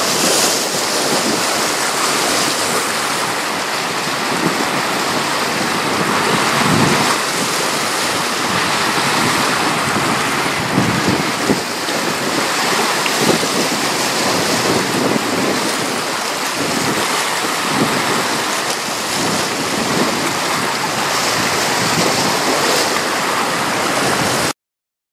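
Choppy river water washing steadily, with wind gusting on the microphone. It cuts off abruptly near the end.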